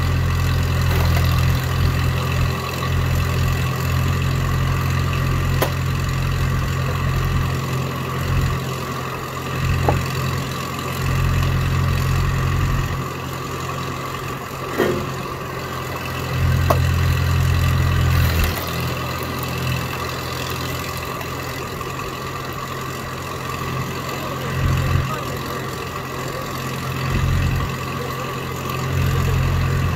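Engine of a tracked log splitter running steadily as logs are split, its deep low note dropping away and coming back several times. A few sharp knocks stand out above it.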